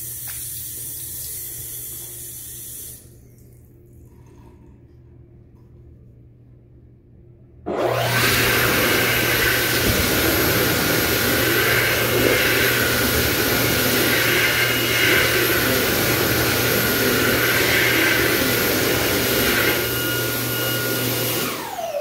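Sensor faucet water running over hands for the first few seconds. After a quieter pause, a Dyson Airblade AB02 hand dryer starts suddenly and runs loud and steady with a high whine while hands are dried. Near the end it shuts off and its whine falls away as the motor winds down.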